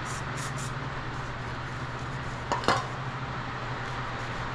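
Two light metallic clinks close together about two and a half seconds in, metal parts knocking against each other, over a steady low hum.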